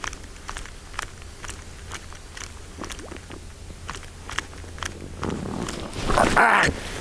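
A topwater lure being worked across the water, with light regular clicks about twice a second. Then a louder splashing rush builds about five seconds in and peaks near the end.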